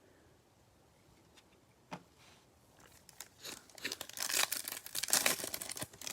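A Bowman Chrome baseball card pack's wrapper crinkling and tearing as it is opened. It starts after a single light click about two seconds in, and the crackling builds from about three seconds in to the end.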